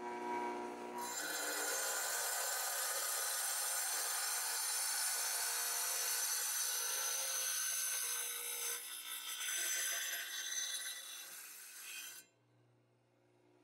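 Circular saw blade grinding through a small sugar geode: a steady high-pitched rasping hiss over the saw motor's whine. It begins about a second in, wavers over the last few seconds, then cuts off suddenly near the end.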